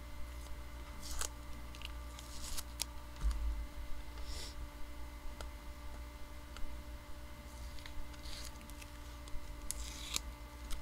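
Blue painter's tape being peeled off a comic-book mailer and the packaging handled: scattered short rustles, crinkles and clicks over a steady low hum.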